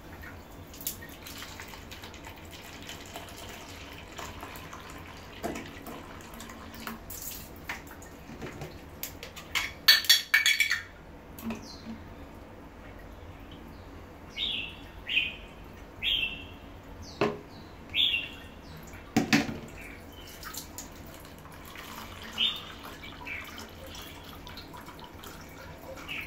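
Filtered water trickling and dripping from a deionising (DI) water filter's outlet tube into a plastic cup, with scattered clicks. A loud rattling clatter comes about ten seconds in, and a run of short, high chirp-like notes follows a few seconds later.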